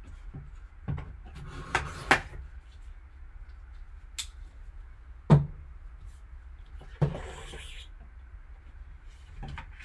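Handling and opening a sealed trading-card box: a few sharp knocks and taps, then a short scraping rustle about seven seconds in, over a low steady hum.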